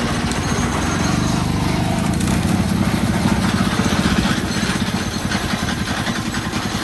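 Hydraulic vibratory tamp on a Cat 308 mini excavator driving a wooden piling down into the bottom: a loud, fast, even pulsing that holds steady.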